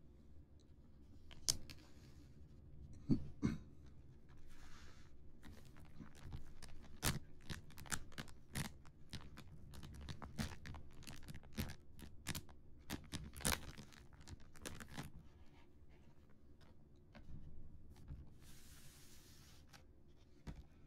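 Fingertips and nails tapping on a round printed Earth disc and on the plastic-wrapped craft-kit packaging: a run of irregular, sharp taps, then a brief scraping rustle near the end as the disc is slid and lifted.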